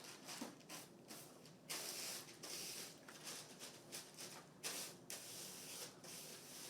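Faint room tone with a few short, soft hissing rustles.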